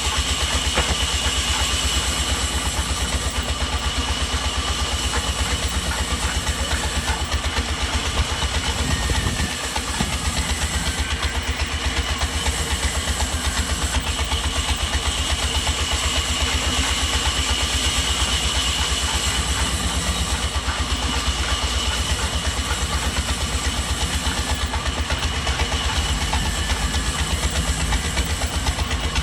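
Sawmill machinery running steadily, a low rumble with a constant high whine over it, dipping briefly about nine seconds in.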